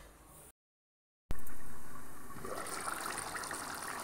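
Taro (arbi) curry simmering in an open steel kadai over a gas flame: an even bubbling hiss that starts suddenly about a second in and slowly fades.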